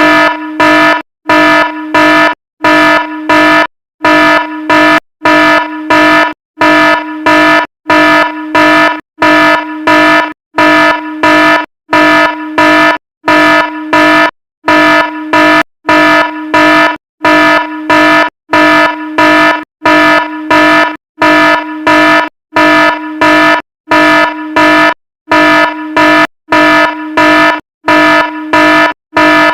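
Fire alarm horn sounding in loud short blasts, about one a second.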